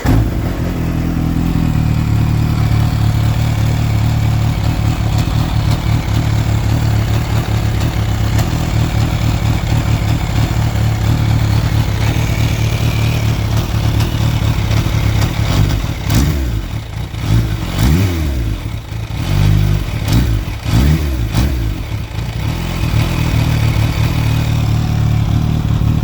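Kawasaki Ninja H2's supercharged inline-four engine starting up and idling with a clicking, clanking noise that the owner hears only at idle and cannot place; gears and clutch work normally. Midway it is blipped several times, the revs rising and falling, then it settles back to idle.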